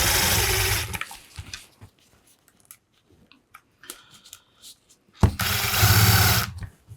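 Cordless power driver running screws in, in two bursts of about a second each, one at the start and one about five seconds in, with a few small clicks between.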